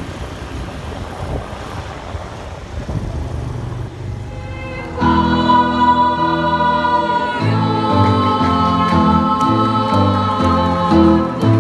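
Muffled background noise for about five seconds, then a group of voices suddenly starts singing a hymn together in held notes that change every second or so.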